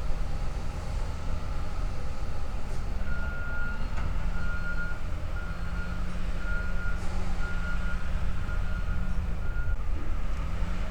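Heavy machine's diesel engine running steadily, with a reversing alarm beeping about once a second for several seconds, starting a few seconds in.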